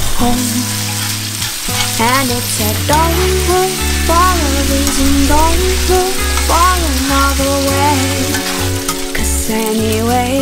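Spaghetti with baby octopus sizzling in oil in a hot pan while being tossed with metal tongs, over background music with a melody and steady bass notes.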